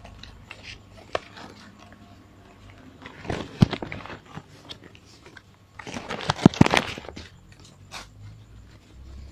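Plastic bag crinkling in two bursts of crackles, about three and six seconds in, with a few single crackles between.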